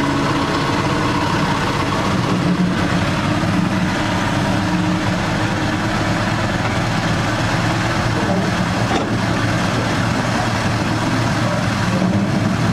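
Diesel engine of a miniature railway locomotive running steadily as the train pulls away and travels along the track.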